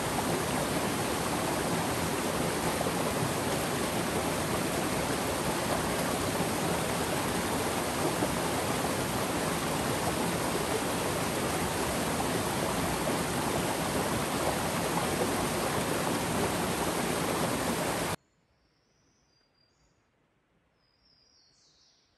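Steady rush of flowing water, a stream or small cascade, that cuts off abruptly about 18 seconds in. Then near silence, with a faint bird chirp near the end.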